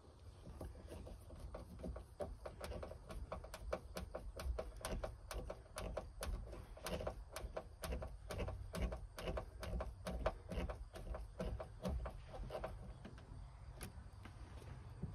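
Small clicks and rattles of hands fitting and removing a round fitting on a dashboard ignition switch shaft: a fast, irregular run of clicks that thins out near the end, over a low rumble.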